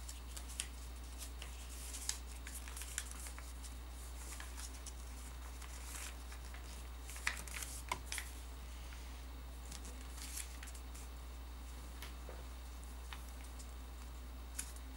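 Paper being folded and creased by hand, with scattered crisp crackles and rustles as the creases are pressed, a couple of sharper ones about seven to eight seconds in, over a steady low hum.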